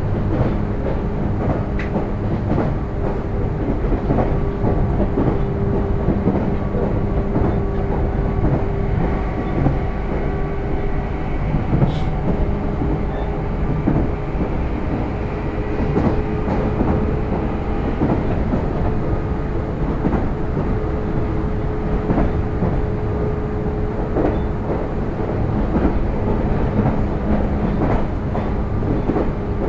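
Meitetsu 6000-series electric train running at steady speed: a continuous rumble with a steady hum, and the wheels clacking over rail joints.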